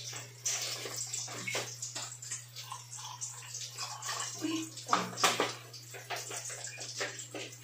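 Hot water pouring from a vacuum flask into a mug, a steady splashing trickle that dissolves the Milo powder and sugar. A few light knocks of handling come through, the loudest around five seconds in.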